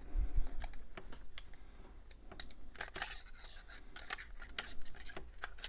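Small metal clicks and clinks of a Damned Designs Djinn folding knife's parts being handled and fitted back together during reassembly, with a brief scraping rub about three seconds in.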